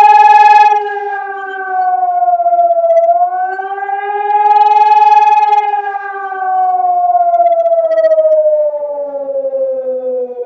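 Civil defence siren wailing, its pitch wavering up and down with swelling and fading loudness. From about six seconds in, the pitch slides steadily downward.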